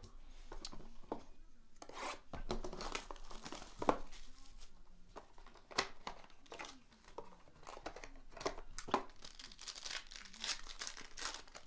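Hands tearing open a Panini Prizm Choice trading-card box and ripping open the card pack inside: cardboard and wrapper crinkling and tearing in irregular bursts, with the sharpest rip about four seconds in.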